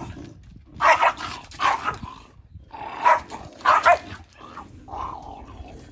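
Jack Russell terriers barking: four loud sharp barks in two close pairs, then a few quieter barks, as the dogs squabble.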